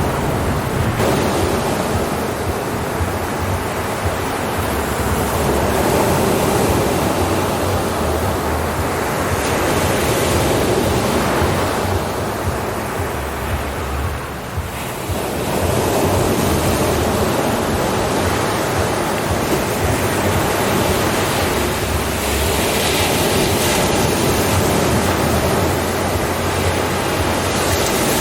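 Ocean surf: waves washing in and breaking on a shore in a continuous rush. About halfway through it eases briefly, then swells back up as the next wave breaks.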